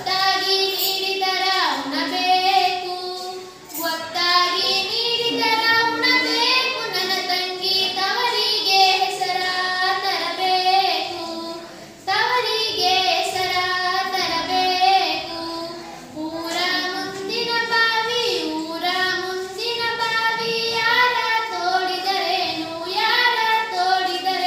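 A teenage girl singing a Kannada folk song (janapada geethe) solo and unaccompanied, in long melodic phrases with short pauses for breath.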